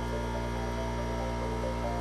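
Shop air compressor running: a steady, unchanging hum that is loud enough to need an apology.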